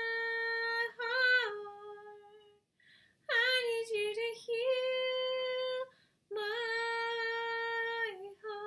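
A woman singing unaccompanied, holding long notes of a slow worship song. Several sustained phrases, some bending in pitch, are broken by short pauses for breath.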